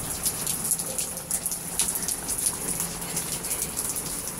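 Steady rain falling, with frequent close raindrops ticking sharply.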